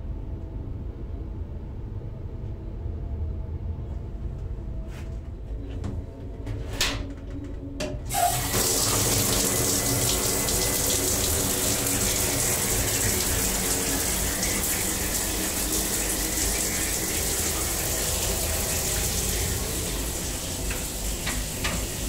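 A few clicks, then about eight seconds in a train's onboard shower is turned on and water sprays steadily, over the low rumble of the moving train.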